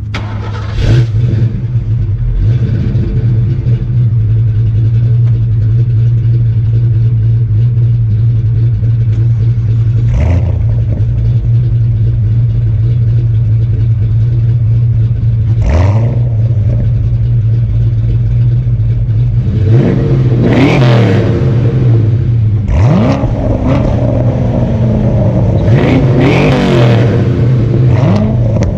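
V8 car engines at a rev battle between a Fox-body Mustang with an aftermarket exhaust and a stock C7 Corvette. An engine starts about a second in and settles to a steady idle. The throttle is blipped once about a third of the way in and again just past halfway, then several harder revs rise and fall in quick succession near the end.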